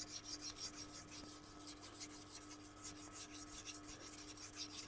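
Rapid, even scraping strokes of a steel lawnmower blade's edge against an abrasive, about four strokes a second, taking off the burr after coarse 80-grit sharpening. The strokes stop suddenly at the end.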